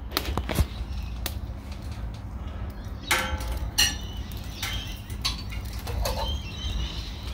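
Wood fire crackling and popping in the firebox of a brick BBQ/pizza oven, and about three seconds in the hinged stainless steel door is swung open with a metallic clank.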